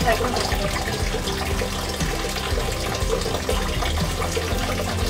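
Spring water running steadily from a stone spout into a basin.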